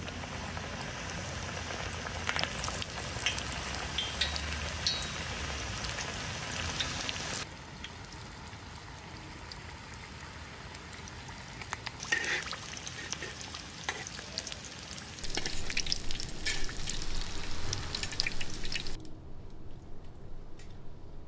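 Samosas deep-frying in hot oil in a wide metal pan: a steady sizzle with scattered crackles and clicks. It is louder for the first seven seconds and again from about fifteen seconds in, and drops away near the end.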